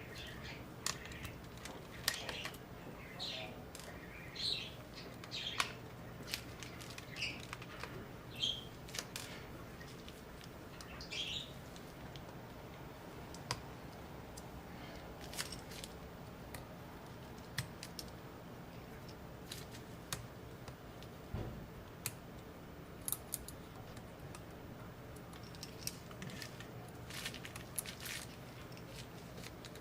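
Scattered small clicks and short squeaky chirps of a precision screwdriver turning tiny screws out of a MacBook Air's logic board and SSD, over a faint steady hum.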